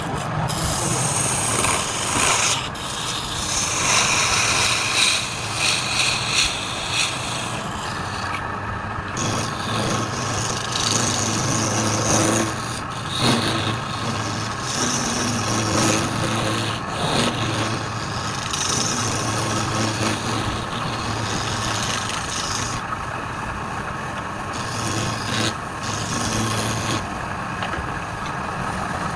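Wood lathe running with a steady motor hum while a tool scrapes against the spinning wood, the scraping coming and going in uneven stretches.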